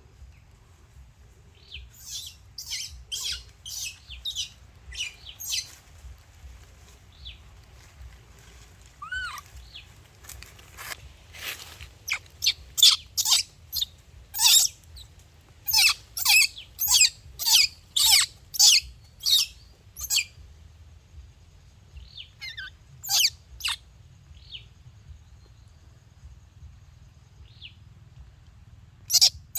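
Short, sharp, high-pitched chirping calls from a small animal, coming in quick runs of about two a second in two bouts, with a few scattered calls later. A low steady rumble runs underneath.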